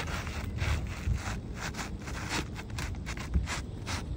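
Asphalt shingle being slid and pushed into place under the overlapping shingles, its gritty granule surface rubbing against the shingles around it in rapid, uneven scraping strokes.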